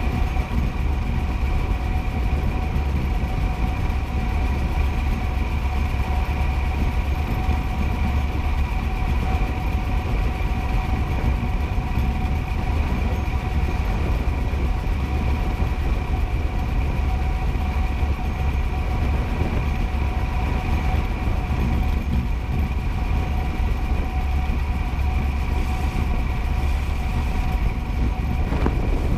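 Steady wind rush on the microphone and rumble of tyres on asphalt during a fast downhill descent, with a steady high whine of a few tones over it.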